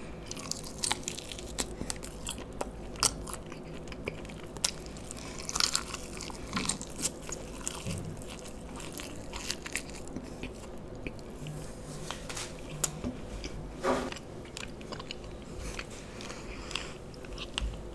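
A person biting and chewing a sauce-coated fried chicken lollipop, with irregular wet clicks and crackles from the mouth and a few louder bites.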